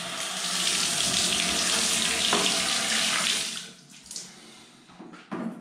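Grohe Euphoria SmartControl hand shower spraying water onto the floor of an acrylic bathtub as a steady hiss. The spray cuts off about three and a half seconds in.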